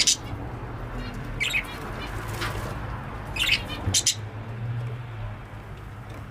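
Budgerigar chirping in short, high bursts, several calls a second or two apart, over a low steady hum.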